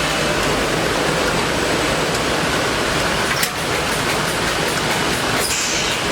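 Steady loud rushing noise of a running woodworking CNC machining centre, with a short click about three and a half seconds in and a brief high hiss near the end.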